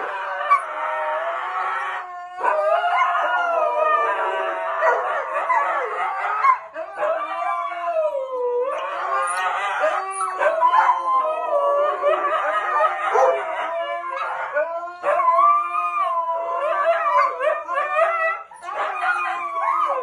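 Dogs, among them a husky, howling: long, wavering howls that rise and fall in pitch, one after another with short breaks between them.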